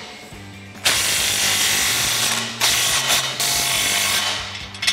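Cordless power tool driving the exhaust clamp nuts tight. It runs in two bursts of about a second and a half each, the first starting about a second in, with a short click near the end.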